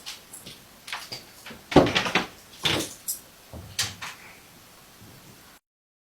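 A series of sharp knocks and bumps, about six of them, the loudest a little under two seconds in. The sound then cuts off abruptly.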